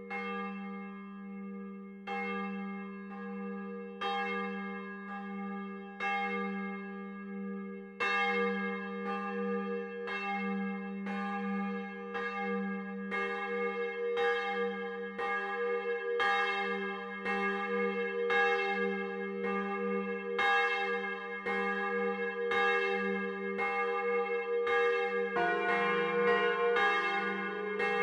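Swinging church bells of a three-bell peal, recorded close up in the bell tower. One bell tolls alone at about one stroke every two seconds, a second bell joins about eight seconds in, and a third comes in near the end, the strokes overlapping in a full ringing peal.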